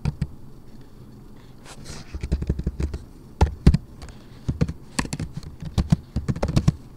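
Computer keyboard typing: a couple of key clicks at the start, then irregular runs of key strokes from about two seconds in.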